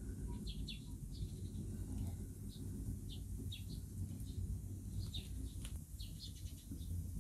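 Small birds chirping, with short high calls scattered every half second or so, over a steady low rumble.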